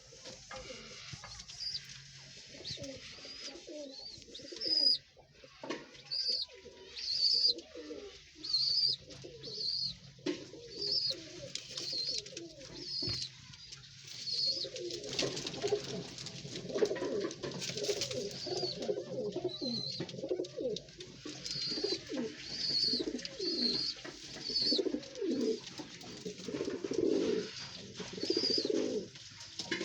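Pigeons cooing over and over, the cooing growing fuller and more continuous about halfway through, with short high chirps repeating alongside.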